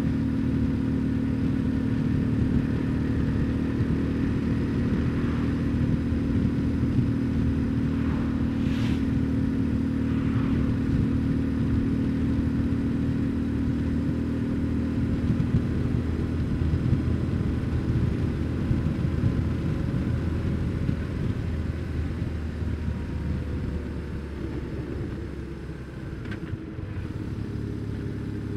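BMW R1150GS's 1130 cc boxer-twin engine running steadily while riding, its note weakening in the second half and dropping in level a few seconds before the end.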